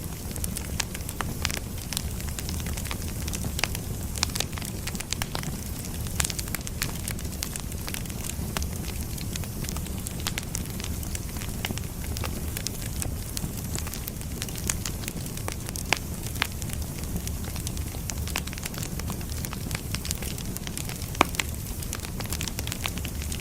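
Firewood burning: a steady low rumble of flames with irregular sharp crackles and pops from the burning logs, a few of them louder.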